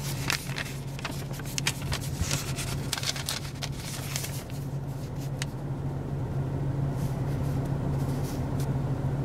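Car engine idling with a steady low hum, heard inside the cabin. A paper receipt rustles in hand through roughly the first half.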